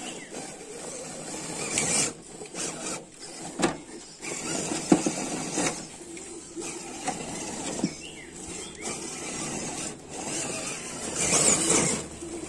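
RC rock crawler truck driving over rocks and dirt: its electric motor and gears whine in uneven bursts while the tyres scrabble and click over stones and leaves, louder about two seconds in and again near the end.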